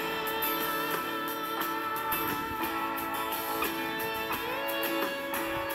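Background music led by guitar, with long held notes and a note that slides in pitch about four and a half seconds in.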